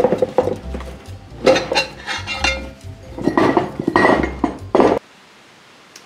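Steel screwdriver shafts clinking and scraping against a steel wheel rim in irregular strokes as a tire bead is levered over the rim to dismount the tire. The clatter cuts off about five seconds in, leaving a faint hiss.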